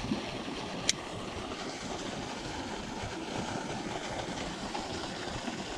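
Steady rush of fast-moving river water pouring through a spillway, with a single sharp click about a second in.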